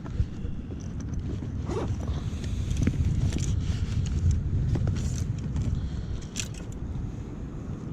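Fishing gear being handled as the rods are set up: scattered clicks and rustles over a steady low rumble.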